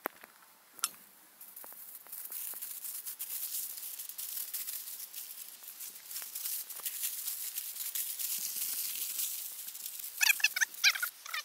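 Aluminium foil crinkling and rustling as it is folded and pressed around a ball of bread dough, a dense crackle of small clicks. Near the end, a short run of loud, pitched calls.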